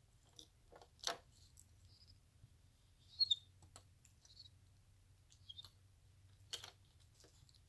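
Scattered sharp clicks and knocks of a plastic baby activity toy being handled by a baby capuchin monkey, with short high chirps about three seconds in and again near five and a half seconds.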